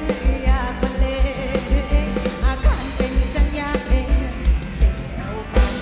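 Thai ramwong dance band music played loud over a PA, a singer's voice over a steady drum beat.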